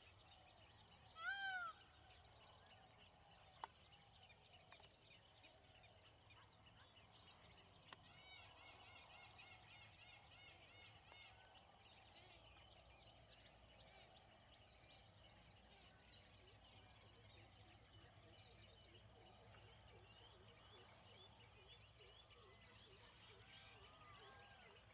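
Faint birdsong: many small birds chirping and calling over and over, with one louder, short call about a second in.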